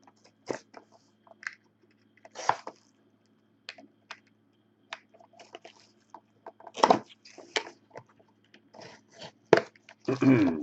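A trading-card box being opened and handled by hand: irregular crinkles, tears and clicks of wrapper and cardboard.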